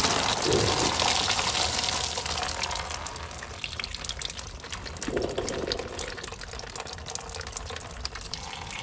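Green engine coolant gushing and splattering out of a just-disconnected coolant hose on an 84 Pontiac Fiero's under-car coolant tube as the cooling system drains. It is strongest at first and slowly eases off.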